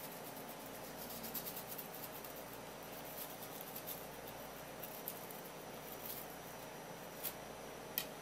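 Knife edge scraping and clicking against a wooden cutting board as the skin is cut away from a small raw fish fillet: light scratchy ticks through the first few seconds, then a few sharp single taps near the end.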